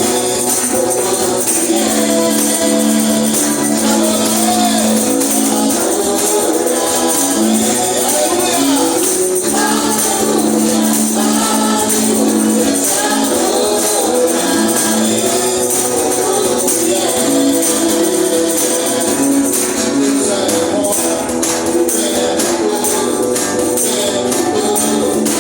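Live band playing an upbeat praise song, with a tambourine shaken throughout and voices singing along.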